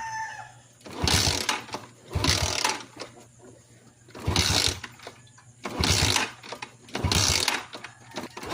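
Motorcycle engine cranked over in five short bursts, each about a second long with a chugging pulse, that never catch: a hard-starting engine that will not fire.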